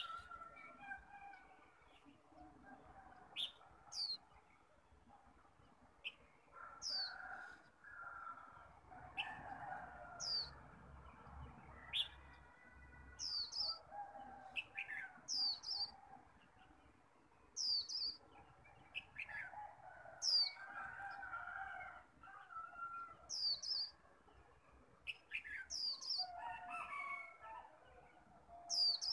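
A caged Japanese white-eye giving short, sharp, high chirps that sweep downward, about one every second or two, rather than its full rapid song. Lower, longer calls run underneath from birds further off.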